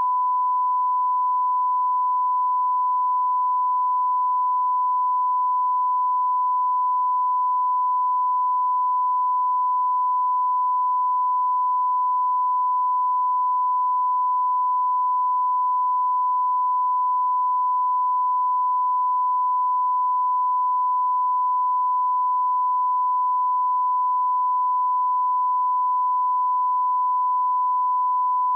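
Steady 1 kHz line-up test tone, unbroken: the reference tone that goes with colour bars at the head of a broadcast tape.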